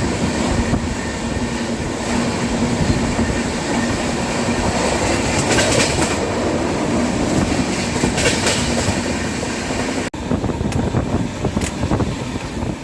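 The 12863 Howrah–SMVT Bangalore Superfast express running at speed, a steady loud rumble of wheels and coaches on the track with rattling and brief higher-pitched squeals.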